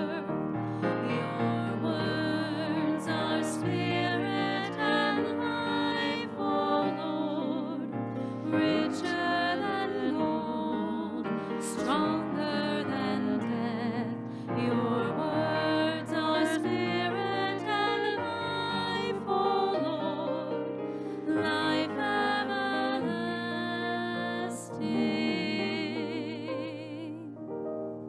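Slow church music with sustained notes and vibrato, fading out near the end.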